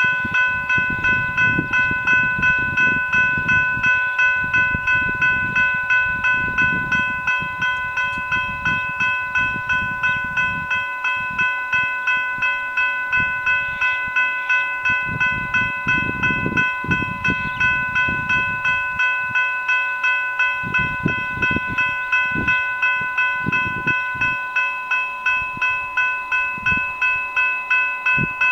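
Level-crossing electronic bells (General Signals Type 3 e-bells) ringing, a fast repeating electronic ding of about two strikes a second, sounding the crossing's warning while it is activated and the boom gates are down or coming down.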